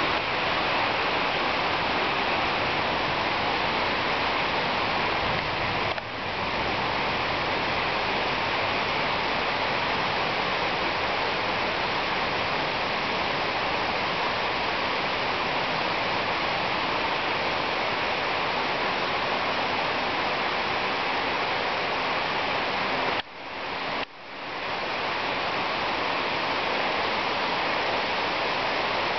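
Heavy rain pouring down in a thunderstorm, a steady dense hiss. The level drops for a moment about six seconds in and twice in quick succession near the end, then comes back.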